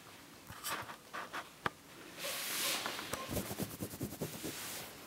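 Kittens' claws scratching and rustling on a fabric bedspread as they walk, irregular small scratches with a short rustle about two seconds in and a quick run of scratches near the end.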